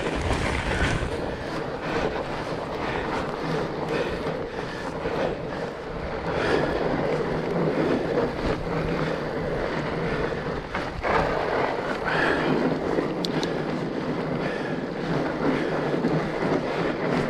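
Fat bike being ridden along a trail: steady rolling noise from the wide tyres, with the rattle and hum of the bike's drivetrain.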